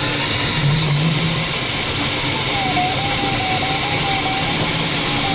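Airflow rushing over a glider's canopy in the cockpit, with the audio variometer sounding a single smooth tone that wavers up and down in pitch as the glider climbs and sinks in turbulence; the tone comes in about halfway through.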